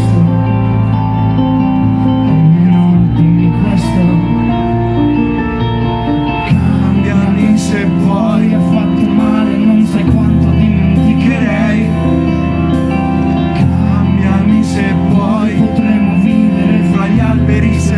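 Live indie rock band playing: electric guitars, bass and drums, with a male lead singer singing. The playing grows fuller about six and a half seconds in.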